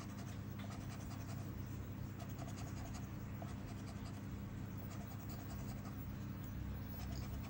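Scratch-off lottery ticket being scratched, a quick steady rasping of short strokes rubbing off the latex coating to reveal the symbols underneath.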